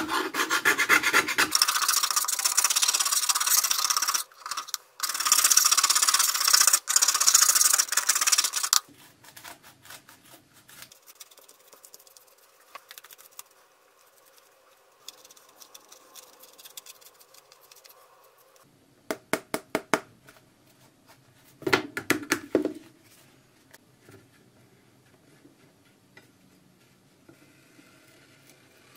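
A metal scraper rasping hard and fast across layered cloth on a wooden board for about nine seconds. Later come a few sharp snips of scissors cutting the cloth, and near the end a faint scratching of a paint marker drawing on it.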